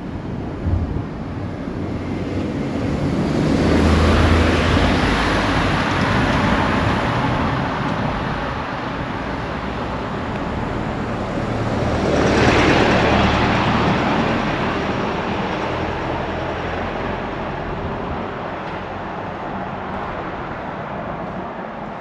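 Two road vehicles driving past one after the other, each swelling up and fading away over several seconds, the first about four seconds in and the second about twelve seconds in.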